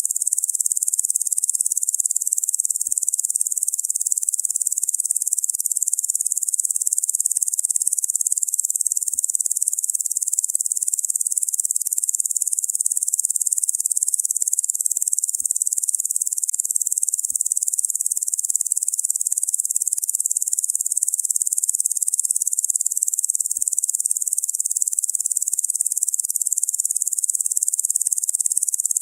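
Locusts' insect buzzing: a steady, unbroken high-pitched chorus with no pauses or change in level.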